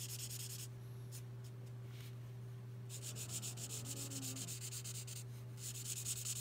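L'emouchet Twin Marker nib scratching across paper in rapid back-and-forth colouring strokes. It stops for about two seconds near the start, then resumes, with a brief break near the end.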